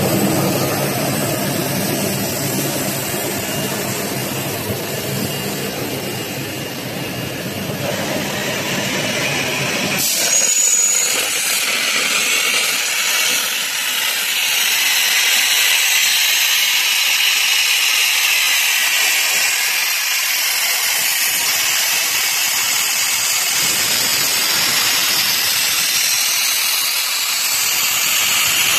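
Dustless suction sandblaster with automatic steel grit recovery: the machine hums steadily, then about ten seconds in the hum gives way to a loud, steady hiss as the handheld blast head fires grit onto rusted steel and sucks it back through the hose.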